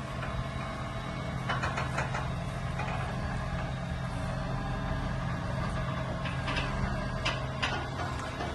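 Engine idling steadily while a dump trailer is hitched on, with a few sharp metal clanks from the hitch and trailer, a couple about a second and a half in and a few more near the end.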